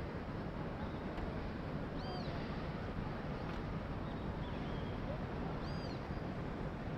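Steady low background noise with a bird's short, arching high chirp repeated a few times, clearest about two seconds in and again near the end.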